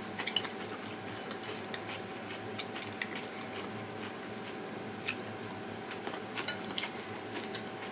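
Eating at the table: small scattered clicks and taps, in a few clusters, over a steady low room hum.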